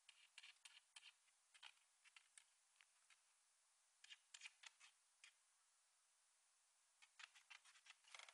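Faint, irregular clicking and scratching in four short clusters from a small dog scuffling with a June bug, such as claws on a hard surface.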